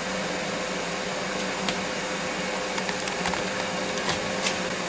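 Ninja Foodi running in Bake/Roast mode with its crisping lid, the convection fan making a steady hum with a faint steady tone. A few faint clicks in the second half.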